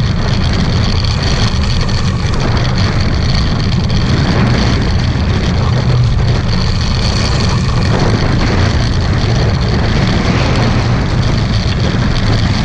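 Strong wind rumbling steadily on the microphone of a Hobie 16 catamaran sailing fast in high winds, with a rushing hiss over it.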